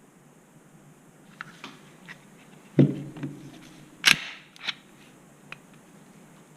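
Pistol being handled: a few light clicks, then a loud dull clack about three seconds in and a sharp metallic snap about a second later, followed by a couple of smaller clicks.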